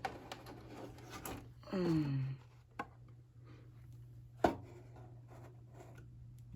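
Handling noise from a VHS cassette: sharp plastic clicks and rubbing, with the loudest click about four and a half seconds in. A short falling tone sounds about two seconds in.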